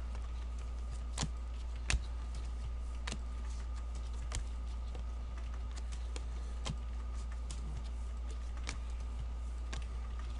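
2015-16 O-Pee-Chee hockey trading cards being flipped through and set down by gloved hands, giving a string of light, irregular clicks and taps, about one or two a second. A steady low electrical hum runs underneath.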